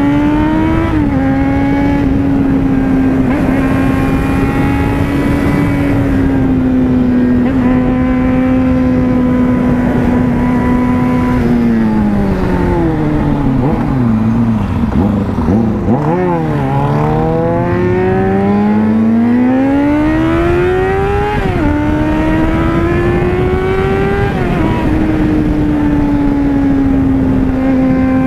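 Yamaha FZ6N's inline-four engine from the rider's seat, cruising at steady revs. About twelve seconds in the engine note falls away as the bike slows for a roundabout. From about sixteen seconds in it climbs again through two upshifts as the bike accelerates, with wind rush on the microphone throughout.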